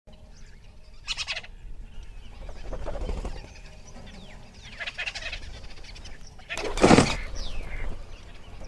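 Birds calling: a series of short calls and falling chirps, the loudest about seven seconds in.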